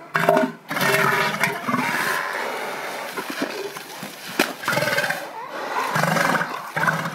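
Bull elephant seals calling at each other in a dominance face-off, a series of pulsed, throaty threat calls. The longest call lasts about a second and a half, starting about a second in, and shorter calls follow near the end.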